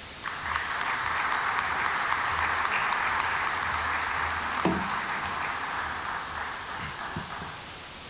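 Audience applauding in a large hall, starting just after the beginning and fading away near the end. About halfway through there is a single knock at the lectern microphone.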